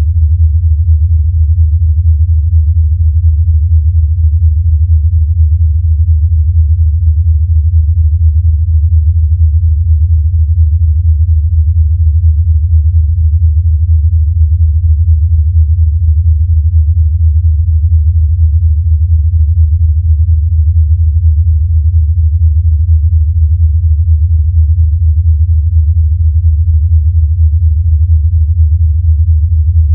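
Low, steady hum with a rapid flutter and no higher sounds: a sonification given as the sound of the black hole XTE J1650-500.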